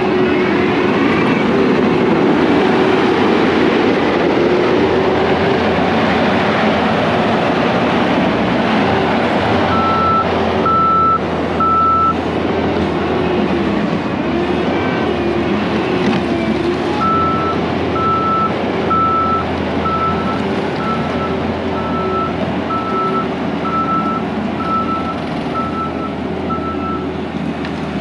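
Hyundai compact track loader's diesel engine running under load as it pushes dirt, its note rising and falling with the work. Its backup alarm beeps about once a second, a few beeps about ten seconds in and again through the last ten seconds as it reverses.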